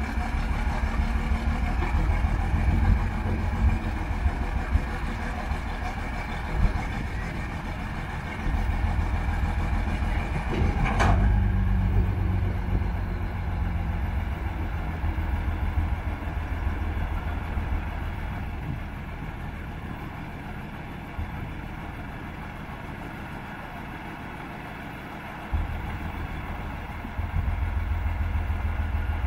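Sterling Acterra truck's diesel engine running steadily while its hydraulic knuckle-boom grapple crane is worked. The engine note rises and falls with the changing load, and there is one sharp knock about eleven seconds in.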